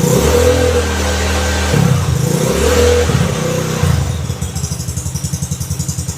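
Yamaha Nouvo scooter engine running at steady revs with a few short throttle changes. About four seconds in, it drops to an even, pulsing idle.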